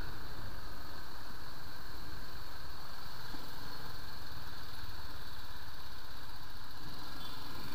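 BMW G 310 GS single-cylinder motorcycle engine running steadily while the bike is ridden along a dirt trail, mixed with steady riding noise.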